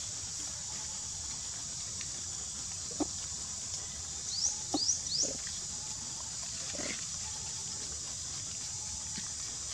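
Steady high insect drone, with three quick rising high chirps just before the middle and a few short low animal sounds scattered through it.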